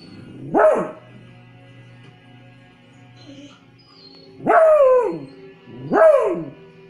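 One-month-old beagle puppy giving three high, yelping barks that rise and fall in pitch: one short bark about half a second in, then two longer ones close together near the end. Television music plays faintly and steadily underneath.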